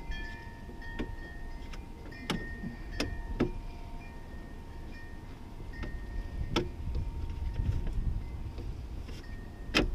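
Scattered sharp clicks and knocks of hands working the third-door handle's rod and retaining clip inside a 2001 Chevy S10's door panel, about five distinct ones, the loudest near the end.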